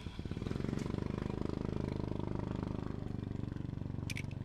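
A small engine running steadily with an even, throbbing pulse, growing louder about half a second in. A brief high chirp sounds near the end.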